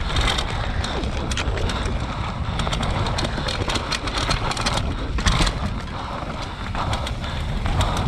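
Enduro motorcycle ridden over rough ground, heard from an on-board camera: engine noise mixed with wind on the microphone and many irregular sharp knocks and rattles from the bumps.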